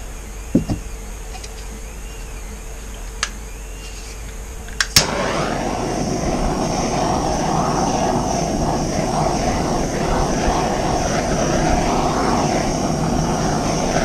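A few faint clicks over a low steady hum. Then, about five seconds in, a click and a loud, steady blowing whoosh, like a handheld electric blower, that runs evenly and stops abruptly at the very end.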